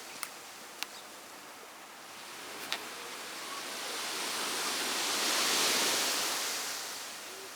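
Outdoor hiss that swells and then fades over a few seconds, with a few sharp crackles or clicks in the first three seconds.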